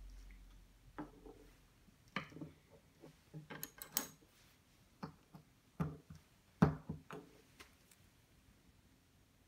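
Plastic Lego Technic parts being handled and fitted together on a wooden tabletop: a string of small clicks and knocks as beams and pins are set down and an axle is pushed into a gear. The loudest knock comes a little past two-thirds of the way through.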